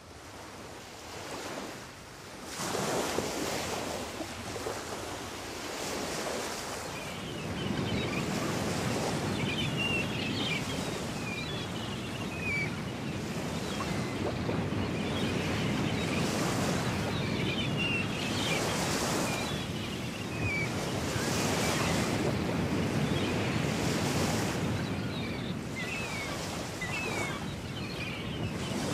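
Ocean surf breaking and washing ashore, the rush of the waves swelling and falling back every few seconds after fading in at the start. High chirping calls sound over the surf from about nine seconds in.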